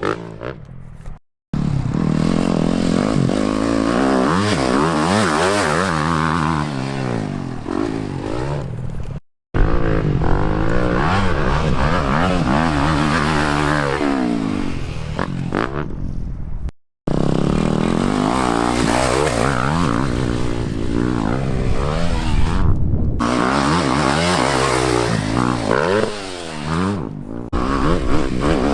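Dirt bike engines revving hard and dropping off again and again, as if shifting through gears. The sound comes in four stretches split by three brief silent cuts.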